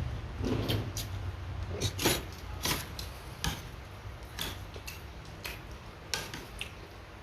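Eating sounds: about a dozen irregular sharp clicks and crunches from chewing crisp food and utensils against a dish.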